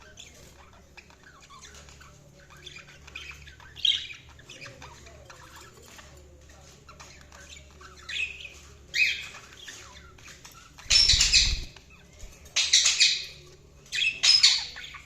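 Budgerigars chattering softly, then breaking into a string of loud, harsh squawks in the second half.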